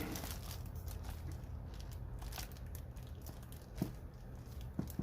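Handling noises of unpacked tool parts and packaging: faint rustling and light clicks over a low steady hum, with two sharper clicks near the end.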